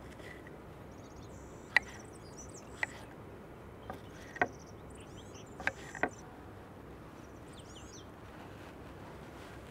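Kitchen knife slicing strawberries on a wooden cutting board: about five sharp taps of the blade on the board, spread over a few seconds. Birds chirp briefly in the background.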